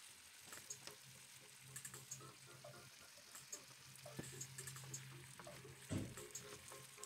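Shrimp frying in melted butter in a pan: a faint sizzle with light clicks of a utensil stirring, and a dull thump about six seconds in.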